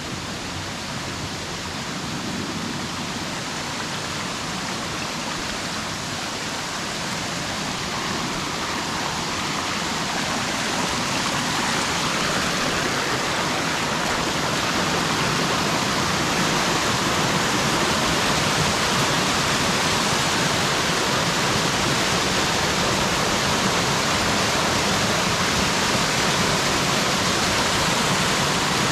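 Waterfall: a steady rush of falling water that grows louder over the first half and then holds.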